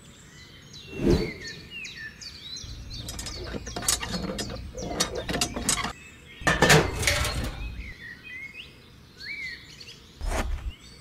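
Small birds chirping in the background while hands handle small plastic diorama parts: a run of clicks, knocks and scrapes, the loudest about six and a half seconds in as the miniature hand pump is pressed into its pipe in the sand.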